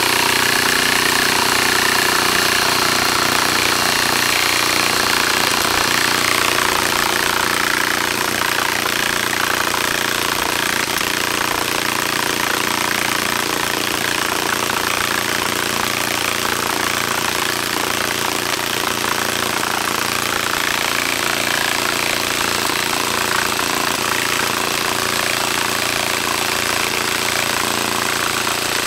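Echo1 PMG-5 battery-powered airsoft minigun firing in one long continuous burst, its motor spinning the rotating barrel cluster with a steady whir.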